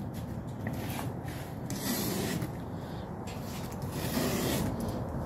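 A box cutter scraping and slicing along the packing tape and cardboard seam of a large shipping box, with cardboard rubbing, in several stretches of louder scraping.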